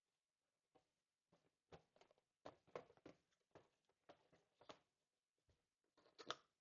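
Faint, irregular rustles and light knocks of a present's packaging being handled and opened, in short bursts.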